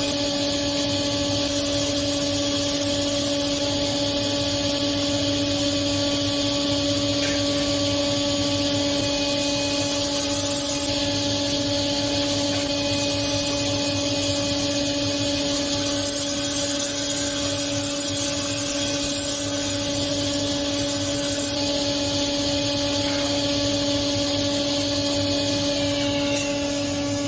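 Table saw running at a steady pitch while its blade rips a strip of mahogany fed along the fence.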